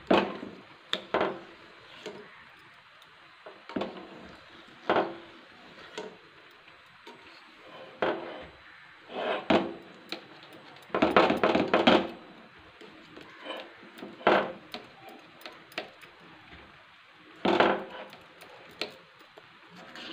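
Steel knife cutting a plate of steamed moong dal batter into pieces, its blade scraping and knocking against the stainless steel plate in irregular short strokes, about a dozen, with the longest run of scraping about halfway through.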